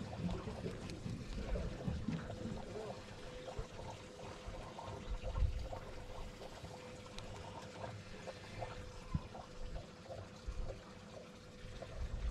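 Lake water trickling and lapping against a pontoon boat, with a faint steady hum and a low uneven rumble underneath.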